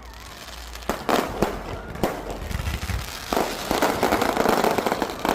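Firecrackers going off: a string of sharp cracks and bangs, one cluster about a second in, another around two seconds, then a dense rapid crackling run through the second half.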